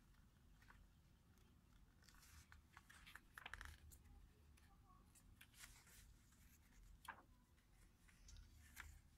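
Faint rustling and flicking of large-format magazine pages as they are turned and smoothed by hand, a few short paper swishes spaced a second or two apart.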